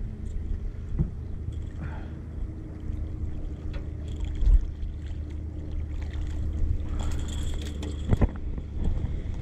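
Small blue catfish splashing at the water's surface as it is reeled in and lifted into an aluminium jon boat, with a few knocks on the hull and a thud about halfway. A steady low hum runs underneath, and a hissing splash with sharp clicks comes near the end as the fish comes out of the water.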